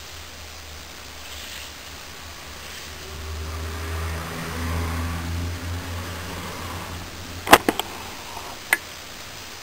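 A low mechanical hum that swells and then fades, followed by a few sharp knocks about two seconds before the end.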